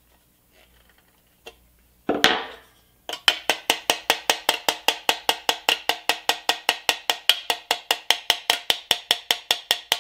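Plastic-tipped hammer tapping rapidly on a pressed-steel Tonka body panel, about five taps a second, folding a tab over flat. It starts with faint clicks of pliers on the tab, then a single loud ringing clank about two seconds in, before the taps begin.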